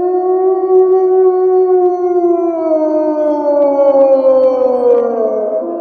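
Wolf howling: one long howl that holds its pitch, then slowly slides down and dies away into an echo near the end.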